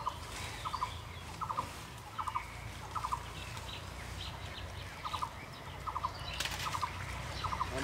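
An animal calling in a steady rhythm: short rattles of three or four quick pulses, about one every three-quarters of a second, pausing for a couple of seconds midway. A brief rustle about six and a half seconds in.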